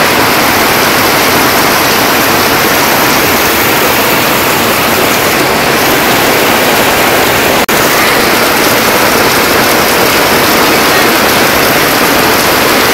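Heavy rain pouring steadily onto corrugated tin roofs and standing water, a loud, even hiss. It cuts out for an instant about eight seconds in.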